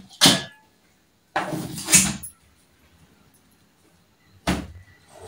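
Kitchen knife cutting into a whole green pumpkin resting in a steel plate: four bursts of knocking and scraping, the second lasting nearly a second.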